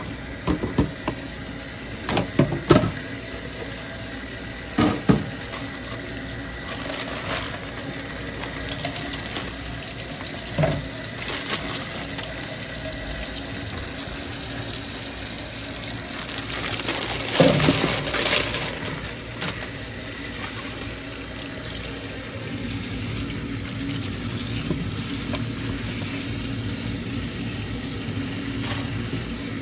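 Kitchen tap running into a sink with a steady rush of water, broken by several knocks and clatters, the loudest cluster a little past the middle.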